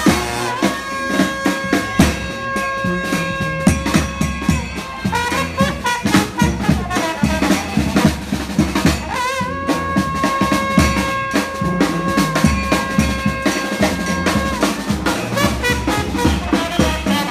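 Live brass band playing in the street: a horn holds two long notes over a steady drum beat and a low bass line.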